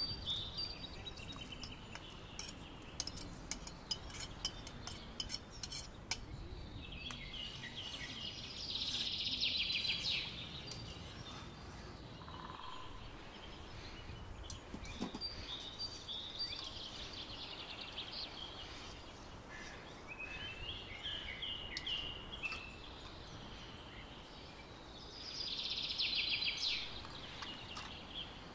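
Birds singing outdoors: two louder trills of about two seconds each, a third of the way in and near the end, with other chirps between. Light clinks of a spoon against a metal bowl in the first few seconds.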